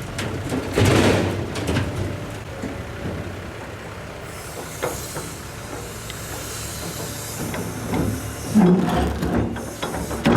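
Excavator's diesel engine running steadily while it loads a dump truck, with louder clattering bursts about a second in and near the end and a hiss in the middle.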